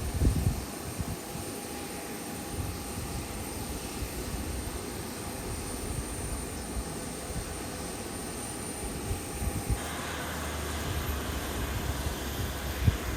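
Boeing 737 jet engines running with a steady whine, with wind gusting on the microphone; about ten seconds in, a rushing hiss grows louder.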